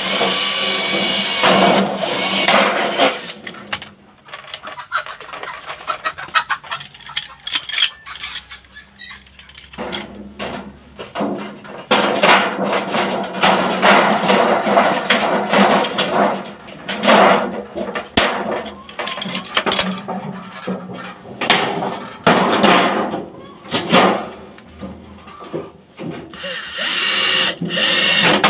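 Power tool working gutter sheet metal in irregular on-and-off runs, loudest near the start, through the middle and near the end.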